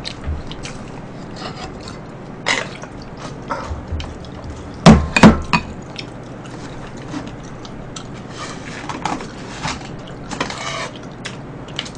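Scattered knocks and clinks of tableware as food is served and eaten: a wooden ladle and utensils against a pot and bowls, and bowls set down on the table, with a louder pair of knocks about five seconds in.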